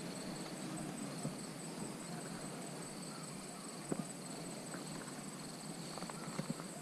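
Faint outdoor ambience with a steady, high-pitched, pulsing insect trill, and a few soft clicks, the most noticeable about four seconds in.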